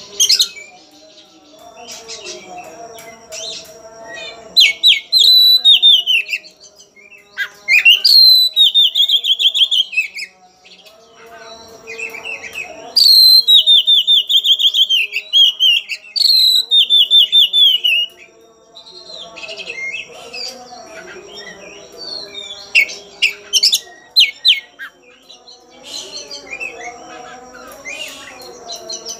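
Caged Oriental magpie-robin singing: four or five loud trilled phrases that fall in pitch, each one to three seconds long, with softer chirps and calls between them. This is the agitated song of a bird worked up to challenge a rival.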